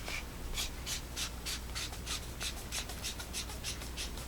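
AstroLux ST01 flashlight being screwed back together, its threaded parts turned by hand in short scraping twists, about three a second.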